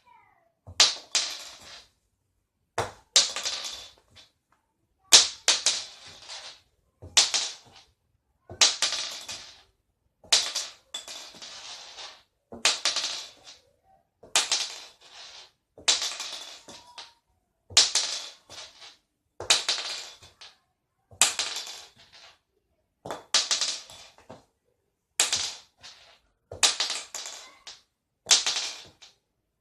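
A .410 shotgun shell flipped and landing on a hard surface over and over: each landing is a quick clatter of a few bounces, about one every one and a half to two seconds.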